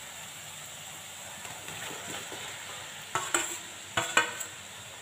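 Fried potato and cauliflower pieces go into a kadhai of hot masala, the oil frying with a steady hiss. A metal spatula then clanks and scrapes against the metal kadhai several times, about three seconds in and again a second later.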